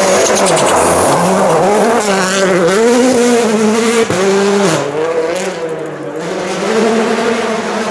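A Hyundai i20 Coupe WRC rally car's turbocharged four-cylinder engine at full throttle on a gravel stage, the revs rising and falling with each gear change and lift. About four seconds in the sound breaks off abruptly into another stretch of rally-car engine note, which dips and then swells again near the end.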